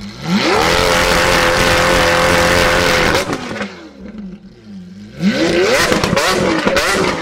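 Lamborghini Aventador S's V12 through a straight-piped Capristo exhaust, revved up from idle and held high and steady for about three seconds, then dropping back to idle. About five seconds in it is revved again in quick blips, with sharp crackling pops from the exhaust.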